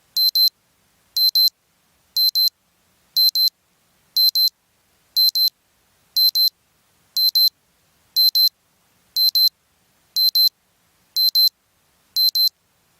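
Digital wristwatch alarm beeping: a high-pitched beep-beep pair repeating evenly about once a second.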